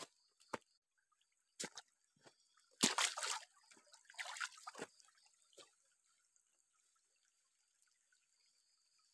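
Water poured and splashing in two short spurts, about three and four seconds in, after a few sharp knocks.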